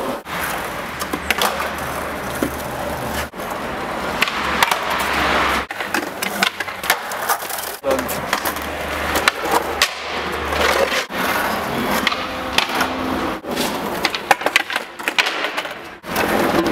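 Skateboard wheels rolling over paving slabs, with repeated sharp snaps and clacks of the board as flatground tricks are popped and landed over several attempts.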